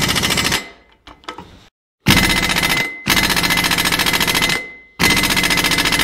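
Impact wrench hammering in three bursts, the longest about two and a half seconds, with a faint steady whine under the later two.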